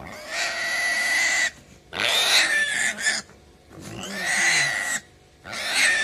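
A piglet squeals in four long, shrill squeals with short breaks between them. It is held down on the ground while being castrated.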